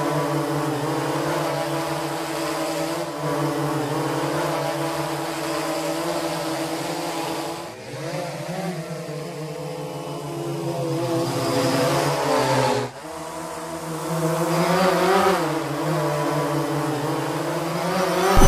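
Quadcopter drone propellers buzzing steadily, the pitch wavering slightly. The buzz swells louder twice, dips briefly about eight seconds in and cuts back sharply about thirteen seconds in, and ends on a low boom.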